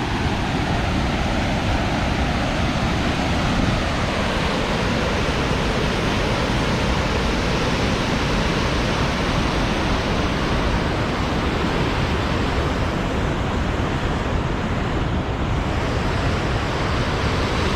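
Floodwater in a swollen creek rushing over rocks: a steady, loud rush of water with no letup.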